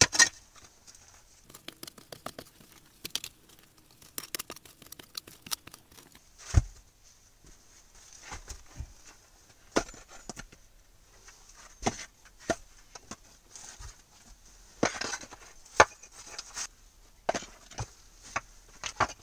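Small shovel scraping into dirt, then rocks being set in place for a fire pit, with irregular scrapes and knocks of stone on stone. The loudest is a single heavy thud about six and a half seconds in.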